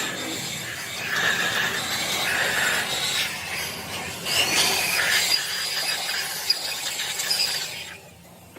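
Harsh, high-pitched scraping with a squealing tone: an abrasive tool working on metal. It stops about eight seconds in.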